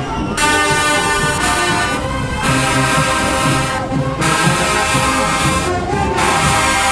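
Marching band brass section playing loud held chords in phrases with short breaks between them, with drums underneath.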